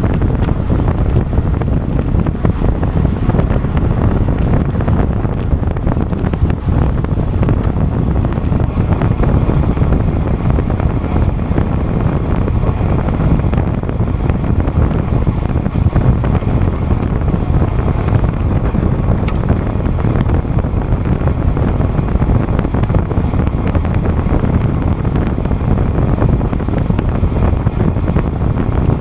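Wind rushing over the microphone of a road bike ridden at time-trial speed, a steady low rush with no let-up.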